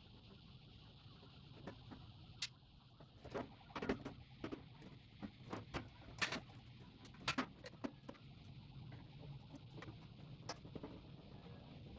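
Scattered clicks and light knocks of hand tools and small metal parts being handled as a microwave oven is taken apart for scrap, irregular and busiest through the middle.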